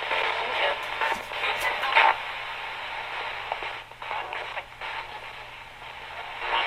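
Ghost box radio (Radio Shack 20-125) sweeping the FM band through an amplifier, giving choppy bursts of static and broken snippets of broadcast sound, with a few sharp clicks early on. It gets quieter and thinner in the second half.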